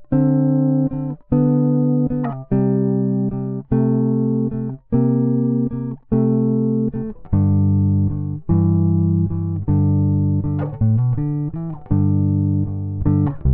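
Electric bass guitar playing an unaccompanied blues riff in chord shapes, a chord struck and left ringing about every second and a bit with short breaks between. The riff moves to a new, lower-sounding position about seven seconds in.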